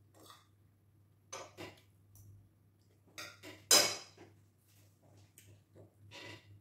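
Metal spoon and fork clinking and scraping against a ceramic plate while eating: a scattering of short clinks, the loudest a little past halfway.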